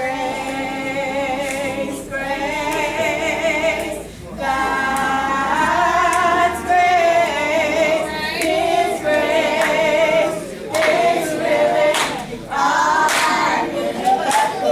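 Gospel vocal group singing a cappella in harmony, long held phrases with short breaks between them.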